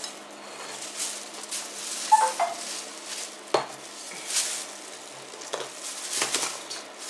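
Thin clear plastic bag rustling and crinkling as it is opened and handled, with a few sharper clicks and knocks.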